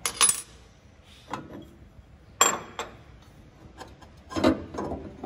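The panel saw's steel main blade and arbor parts being handled as the blade is lifted off its arbor. There are a few sharp metallic knocks, the loudest about two and a half seconds in, and a scraping rub near the end.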